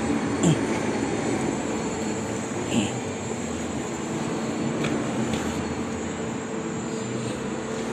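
Steady mechanical hum, with a couple of brief faint sounds about half a second and three seconds in.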